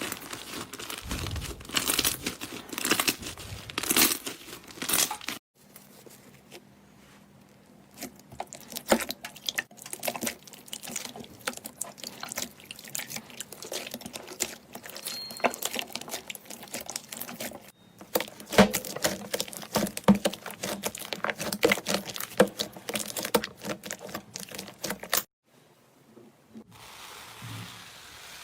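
Slime being squeezed and worked by hand: dense crackling clicks and pops, in several separate stretches that cut off suddenly, giving way near the end to a softer steady hiss.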